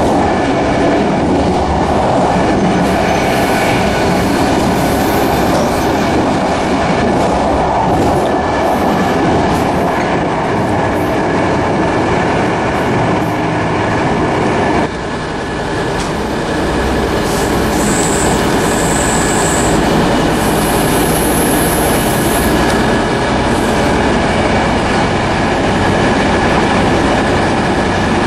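Inside a moving passenger train carriage: the steady rumble and clatter of the wheels on the rails, with brief high-pitched wheel squeals about two-thirds of the way through.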